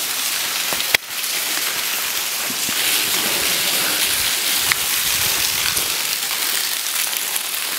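Steady rain-like hiss of water dripping and trickling inside a railway tunnel, with one sharp click about a second in.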